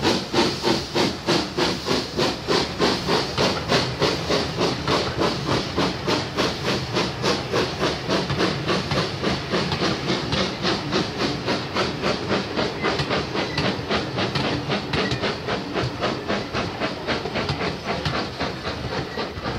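Steam locomotive exhaust chuffing in a steady, rapid beat with a hiss of steam as it pulls its train away. The beats fade gradually as the train draws off.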